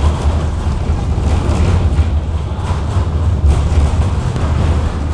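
KTM-19 tram running along the street, heard from inside the passenger cabin: a steady low rumble with road and running noise over it.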